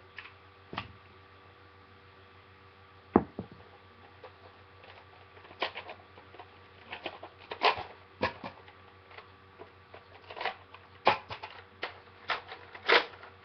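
Irregular clicks, taps and knocks of a plastic Nerf blaster and its parts being handled close to the microphone, with one sharp knock about three seconds in and a busier cluster of clacks in the second half.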